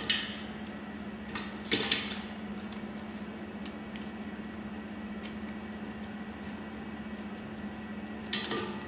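Cloth bag being handled and fitted onto the flour container's plastic ring: brief rustles and light knocks at the start, about two seconds in, and near the end, over a steady low hum.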